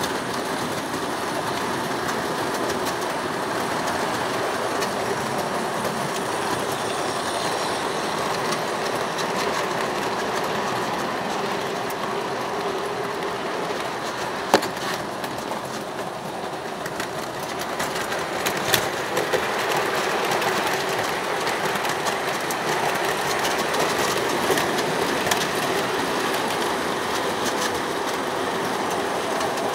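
ACE Trains O gauge model train running on the layout's track: a steady rumble and rattle of wheels over the rails, with a few sharp clicks about halfway through.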